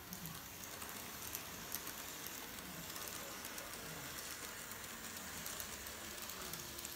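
Kato N-scale model trains running on the layout's track: a steady light rattle and hiss of small wheels on the rails, with scattered faint clicks as they cross rail joints and points.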